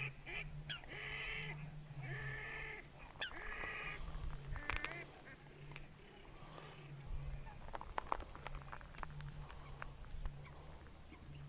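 Wild waterfowl calling across the water: a quick run of short quacking calls at the start, then three longer calls within the first four seconds. Fainter calls and a few light clicks follow.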